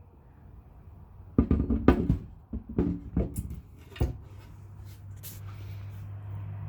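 RV kitchen cabinet doors being opened and shut: a quick run of knocks and clunks. A steady low hum sets in about four seconds in.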